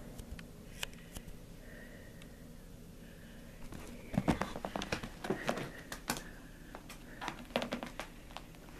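Soft rustling of clothing with light scratchy clicks as a small kitten climbs onto a person's lap, the clicks thickest about four to six seconds in.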